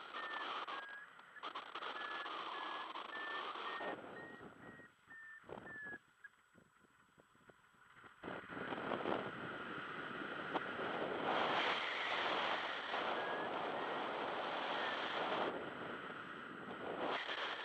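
Wind rushing over the microphone during a paraglider flight. It drops to near silence for a few seconds in the middle, then comes back louder. A flight variometer beeps in short, evenly spaced high tones in the first few seconds and again faintly later on.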